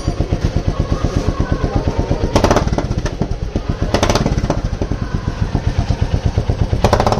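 Royal Enfield Classic 350's single-cylinder engine idling through an aftermarket Indori exhaust, its baffle not yet fitted, with a steady rapid thump of about eight to ten beats a second. Three short clattering knocks come through it, about two and a half seconds in, at four seconds and near the end.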